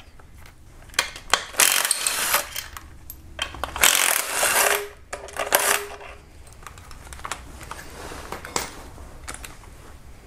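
Metal socket tool on 14 mm bolts: short spells of clicking and metallic clinking as the engine-mount bracket bolts are loosened and backed out, about a second at a time.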